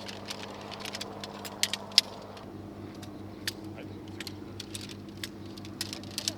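Scattered light clicks and clinks of small objects being handled, the loudest about two seconds in, over a steady low hum.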